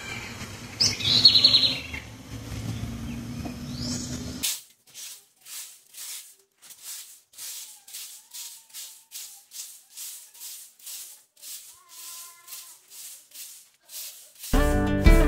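Quiet background music with birds chirping, then a broom sweeping a floor in steady strokes, about two a second, with faint bird chirps. Music comes back in loudly near the end.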